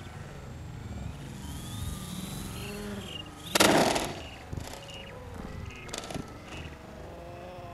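Radio-controlled model airplane crashing: a rising motor whine, then a loud crash a little over three seconds in as it hits the ground, followed by a few sharp knocks.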